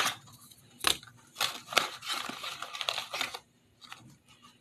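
Small toy packaging torn open and crinkled by hand: a sharp rip about a second in, then a couple of seconds of crinkling rustles.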